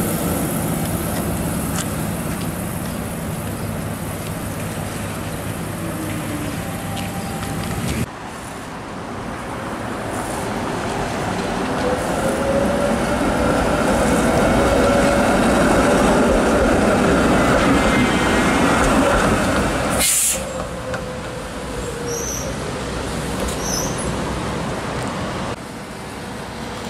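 Toronto streetcars running on wet track around a loop: first a CLRV, then an articulated ALRV passing close, its running noise swelling and fading with a whine that rises and falls in pitch. A sharp clank comes about twenty seconds in, and traffic runs on wet road behind.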